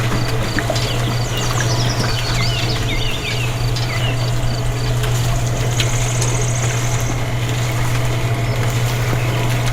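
A steady low hum throughout, with birds chirping and an insect calling in even repeated pulses over it, and a short buzzy trill about six seconds in.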